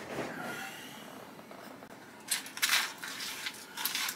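Hands rustling through small electronic kit parts in a cardboard box, in two short bursts of crinkly rustling about halfway through and near the end, over quiet room tone.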